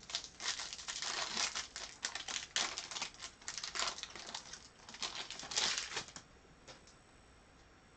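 Foil trading-card pack wrapper being torn open and crinkled by hand, in irregular crackling bursts that stop about six seconds in.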